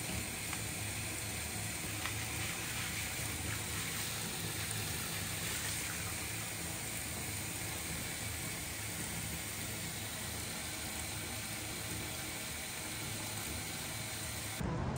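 Bath tap running into a filling bathtub: a steady rush of pouring water.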